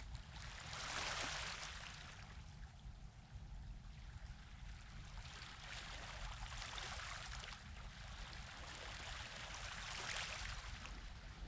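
Small waves washing in on the shore at night, a hiss of surf that swells and fades three times over a steady low rumble.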